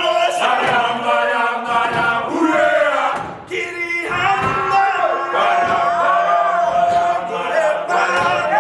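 A group of men singing a pre-match team chant together, many voices at once, with a short break about three and a half seconds in.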